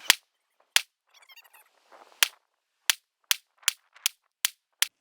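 SCCY CPX-2 9mm pistol firing nine single shots, unevenly spaced at first, then quickening to about two and a half shots a second.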